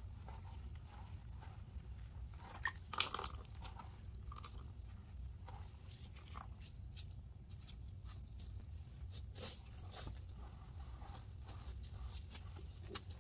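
Gloved hand swishing and stirring sudsy Comet cleaning liquid in a bowl: wet sloshing, small splashes and drips, with one louder splash about three seconds in. Near the end a sponge is pressed down into the soapy liquid. A low steady hum runs underneath.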